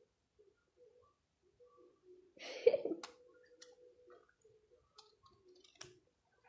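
Scissors trimming a handmade bow, a few faint snipping clicks, with one louder noisy rustle about two and a half seconds in.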